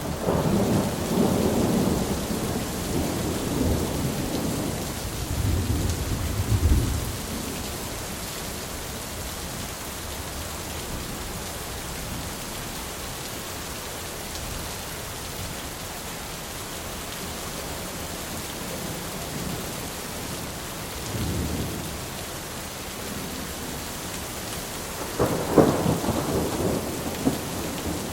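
Thunderstorm: steady heavy rain, with rolling thunder that rumbles for the first several seconds and dies away. A fainter rumble comes about two-thirds of the way through, and a sharper thunderclap with rumble near the end.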